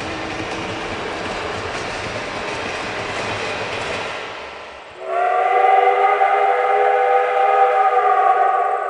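Steam train running, a steady rushing noise that fades out, then about five seconds in a multi-chime steam whistle blows one long, steady chord.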